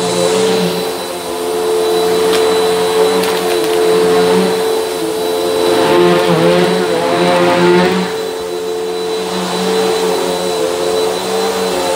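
Vacuum cleaner running steadily with a constant motor whine, its airflow rushing louder and softer as the nozzle is worked back and forth over carpet. A few sharp clicks come as dried beans are sucked up.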